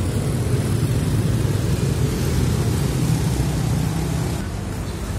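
City street traffic: motorcycles and cars passing on a wet road, a steady low rumble with a hiss above it.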